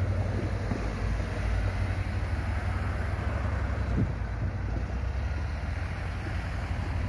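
Steady low rumble of a diesel-hauled train running past, with wind buffeting the microphone; a short knock about four seconds in.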